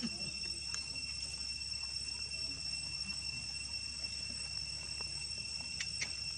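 Steady, high-pitched insect drone, with a few faint clicks about a second in and again near the end.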